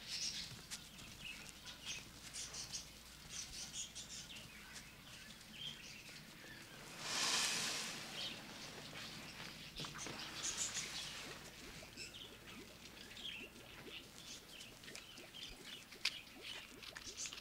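Faint, scattered high chirping throughout. About seven seconds in comes a soft rushing slide lasting about a second as a paper shoji screen door is slid open.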